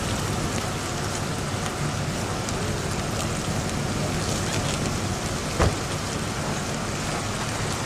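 Steady noise of slow-moving convoy vehicles and a roadside crowd, with one sharp knock about five and a half seconds in.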